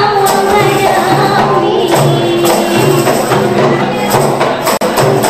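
Qasidah music: a woman singing a wavering melody into a microphone over a steady beat of frame drums and tambourine jingles. The sound cuts out for an instant about half a second before the end.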